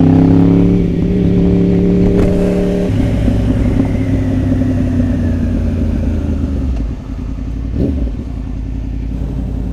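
Sport motorcycle engine running steadily at road speed. Its note changes about three seconds in and drops a little near seven seconds as the throttle eases.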